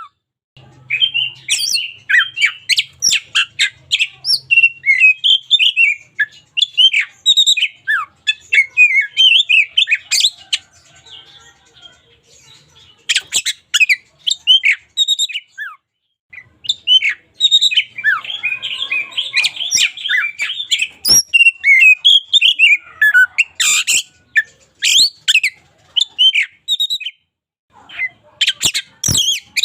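Oriental magpie-robin (kacer) singing: fast, varied phrases of whistles, chirps and harsh squawking notes, with a couple of short pauses midway.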